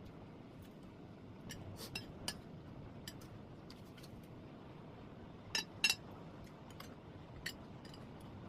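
Scattered light clicks and clinks of eating utensils against dishes during a meal, with two sharper clinks in quick succession about five and a half seconds in.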